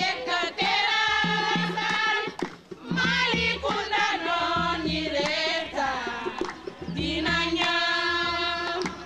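A woman singing a song in loud, long held notes with a wavering pitch, in phrases broken by short pauses, with other voices and a low, steady beat underneath.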